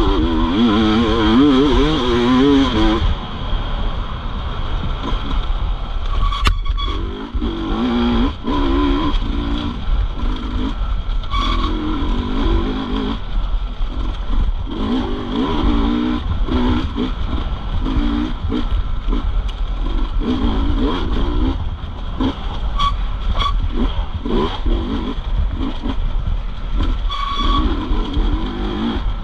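Dirt bike engine revving and easing off over and over, its pitch wavering up and down, over a constant low rumble. There is one sharp click about six seconds in.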